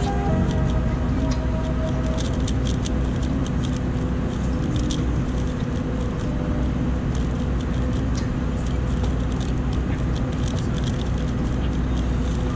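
Steady airliner cabin drone with a constant low hum. Over it comes rapid, irregular light clicking, typical of a speed cube being turned during a solve.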